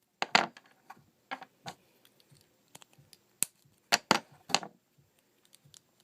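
Plastic Lego pieces clicking and clattering as they are handled and pressed together: a run of irregular sharp clicks, with the loudest cluster about four seconds in.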